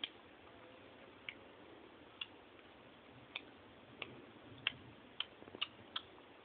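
Sharp, irregularly spaced ticks, about ten over several seconds, over a faint steady hiss.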